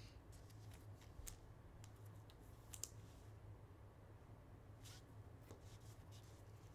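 Near silence with faint scattered clicks and light rustles of trading cards being handled, over a faint steady low hum.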